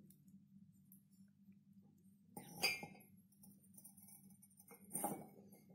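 Ceramic mugs clinking as they are handled and set down, two sharp clinks about two and a half seconds apart, the first the louder with a brief ring.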